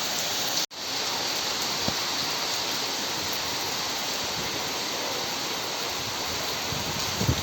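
Steady rain falling, an even hiss, cut off for an instant about a second in and then going on as before, with a few low thuds near the end.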